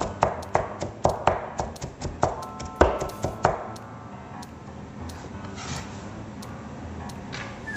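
Chef's knife chopping carrots on a plastic cutting board: quick sharp knocks, about four a second, that stop about three and a half seconds in. Softer rubbing follows as the diced carrot is gathered up by hand off the board.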